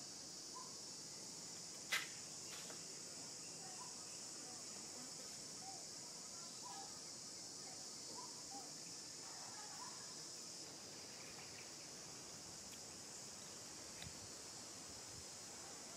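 Faint, steady high-pitched insect chorus droning without a break. A single sharp click about two seconds in and a softer one near the end.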